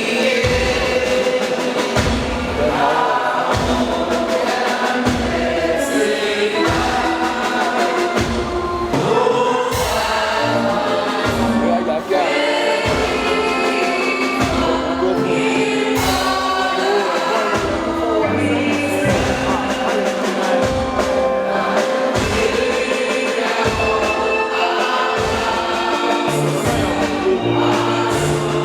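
A national anthem sung by many voices together over accompaniment with a steady low beat about once a second.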